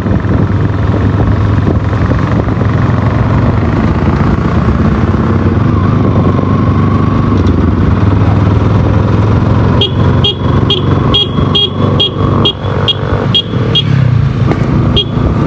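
Bajaj Pulsar NS200's single-cylinder engine running steadily under way. About two-thirds of the way through, a quick run of short, high-pitched ticks starts up, roughly two or three a second.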